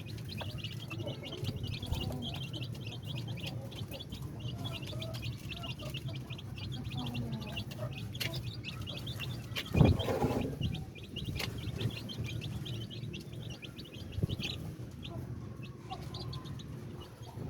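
Thai chickens clucking, with rapid high-pitched chirping throughout and one louder call about ten seconds in.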